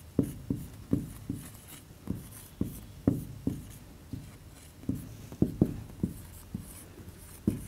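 Felt-tip marker writing numbers on a whiteboard: a run of short, irregular strokes and taps as each figure is drawn.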